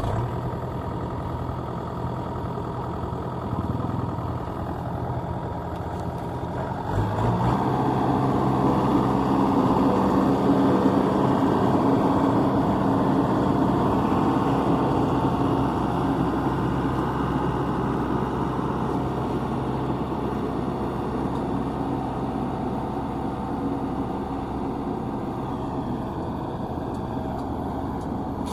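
Combine harvester's diesel engine running steadily, then speeding up and getting louder about seven seconds in and holding at the higher speed.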